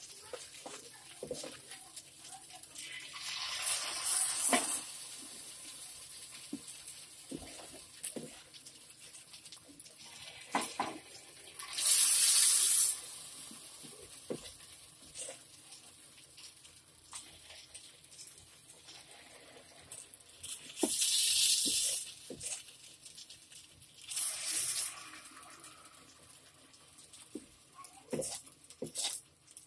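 Idli-batter paniyaram batter sizzling as it is poured into hot oil in the cups of a paniyaram pan. There are four loud hissing bursts several seconds apart, with light clicks and taps between them.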